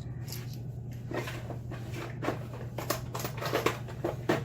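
Screwdriver bits and tools being handled and put away: irregular short clicks and clacks, the loudest near the end, over a steady low hum.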